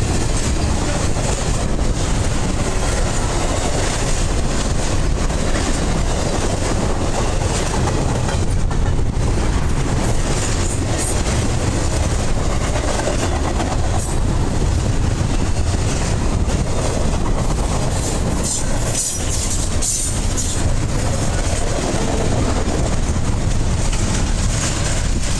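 Double-stack intermodal well cars rolling past at close range: a loud, steady noise of steel wheels running on the rails.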